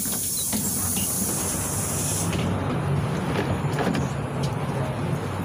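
Inside a PAZ-32054 bus: a sudden hiss of released compressed air for about two seconds, over the steady low hum of the bus's engine, with a few light knocks after it.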